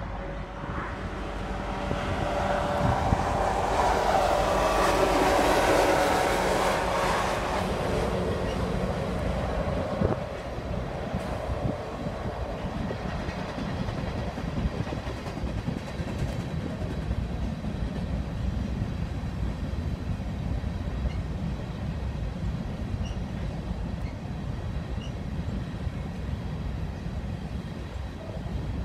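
Two EMD SD70M diesel-electric locomotives passing close by, their engines loudest a few seconds in, then a long string of hopper cars rolling past with a steady clatter of wheels over rail joints and a sharp clank about ten seconds in.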